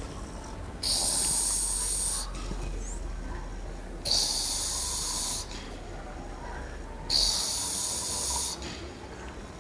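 A sleeping man snoring: three loud, hissing breaths about three seconds apart, each lasting over a second.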